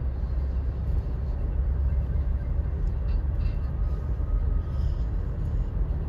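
In-cab road noise of a 2021 Toyota Tacoma driving through fresh snow on BFGoodrich KO2 tyres: a steady low rumble of engine and tyres.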